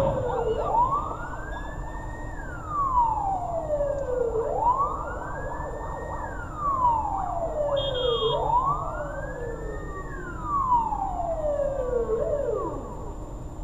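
Police car siren wailing, its pitch rising and falling slowly, about one cycle every four seconds, then winding down near the end.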